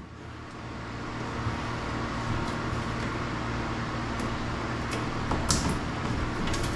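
Steady machine-like drone with a low hum, fading in at the start, with a few light clicks and a brief crackle about five and a half seconds in.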